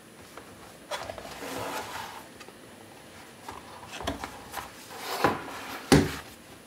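Cardboard phone box being opened by hand, with a rubbing, scraping sound of the lid sliding off about a second in. A few light knocks follow as the phone is lifted from its tray, then a sharp knock near the end, the loudest, as the polycarbonate Nokia 150 is set down on the desk.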